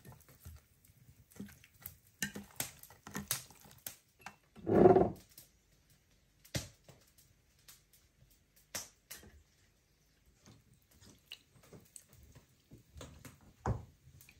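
Hands seasoning raw chicken pieces on an enamel plate and handling a small glass jug of juice: scattered light clicks and taps of dishes and utensils. One louder sound of about half a second comes about five seconds in, and a sharper tap comes near the end.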